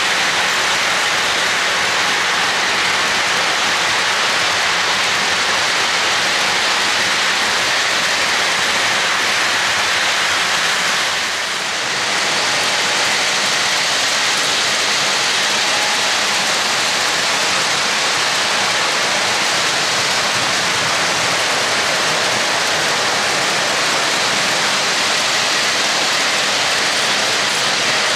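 Steady rushing roar of an O-gauge model freight train running on three-rail track, the wheels and motors of the Burlington diesel and its cars rolling along continuously, with a brief dip about eleven seconds in.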